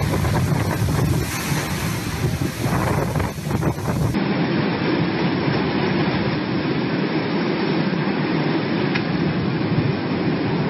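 Hurricane-force wind blowing hard and without let-up, buffeting the microphone. About four seconds in it cuts to a second, duller-sounding recording of the same storm wind.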